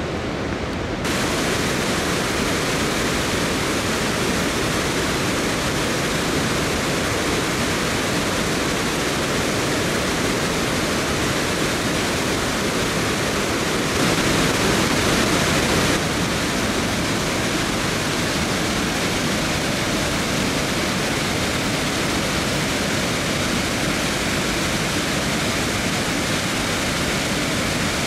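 Flood water pouring over the stone lip of a reservoir's bellmouth overflow spillway and down its shaft: a steady rushing of falling water. It grows brighter about a second in and is louder for a couple of seconds around the middle.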